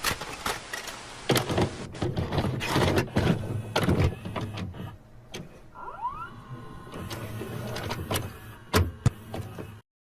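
VHS video cassette recorder's tape transport mechanism working: a run of mechanical clicks and clunks with short motor whirs, a brief rising whine about six seconds in, then a steadier motor run that cuts off abruptly near the end.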